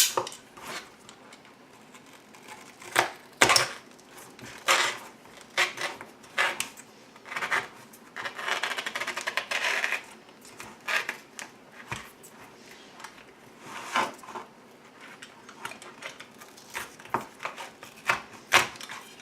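A blade cutting around the gasket of a Mach 460 car-audio speaker: irregular clicks and scrapes, with a longer scraping cut about eight to ten seconds in.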